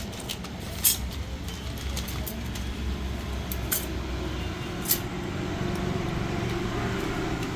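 A vehicle engine running with a steady low rumble, with two sharp clicks, about a second in and again about five seconds in.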